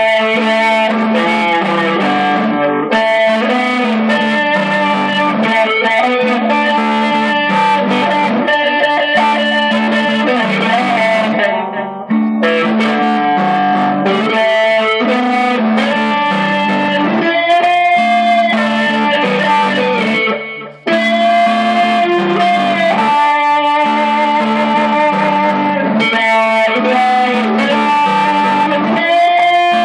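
Electric guitar played in a jam: picked melody lines with long held notes over a repeating low figure. It breaks off briefly about twelve seconds in and again about twenty-one seconds in.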